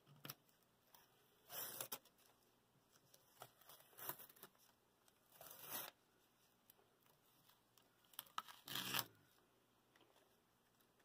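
Paper pattern, pasted on with spray adhesive, being peeled off plywood. There are about four short tearing rips a couple of seconds apart, the last and loudest near the end.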